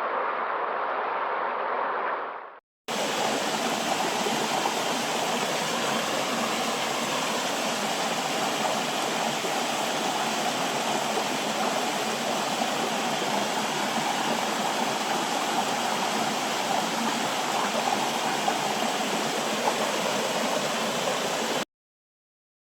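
Steady rushing water, an even hiss-like rush that cuts off abruptly near the end. In the first few seconds a duller, more muffled rush fades out before it, with a short silent gap between them.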